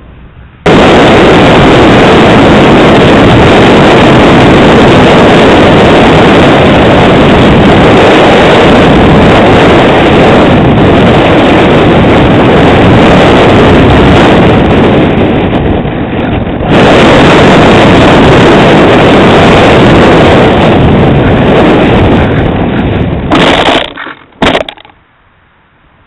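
Loud, distorted rush of airflow and the electric motor and propeller of a Skywalker FPV plane, heard by its onboard camera microphone, starting suddenly about a second in as the plane powers up. It dips for a moment partway through, as power is cut for a dead-stick attempt, then comes back. It breaks into a couple of short bursts near the end as the plane lands.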